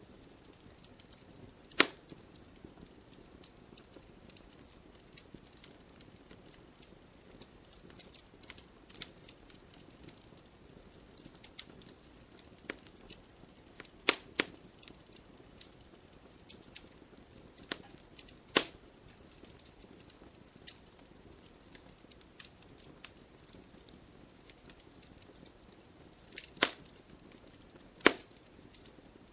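Wood fire crackling in a fireplace: a soft steady hiss with a scatter of small snaps, and five louder pops spread through.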